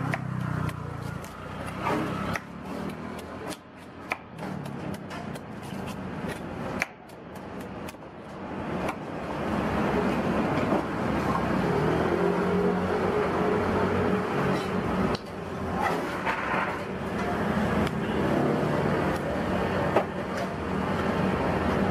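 Machete blade shaving and scraping the soft husk off a young coconut, with sharp scrapes and knocks at irregular intervals against the coconut and the wooden chopping stump. From about ten seconds in a steadier background noise rises beneath the strokes.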